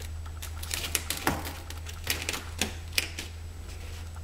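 Irregular light clicks and taps as a peel-and-stick foam edge strip is handled and pressed down onto the floor, over a steady low hum.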